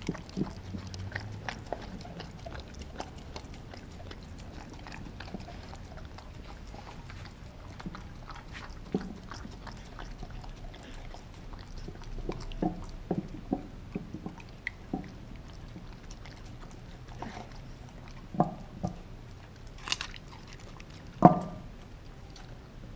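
A German Shepherd-mix dog chewing and crunching raw food from a stainless-steel bowl, with irregular clicks and knocks. The loudest knock comes near the end.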